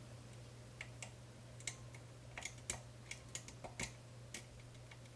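Faint, irregular metallic clicks of a lifter pick probing and jiggling the pins inside a Medeco 5-pin cam lock, about a dozen over a few seconds.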